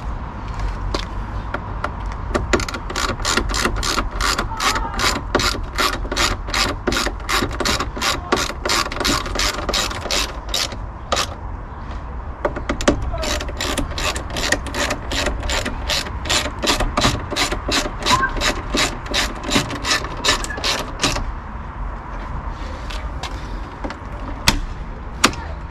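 Hand ratchet clicking in quick back-and-forth strokes, about four clicks a second, as the new door lock's mounting screws are tightened. There are two long runs of clicking with a short pause between them, and a few scattered clicks near the start and end.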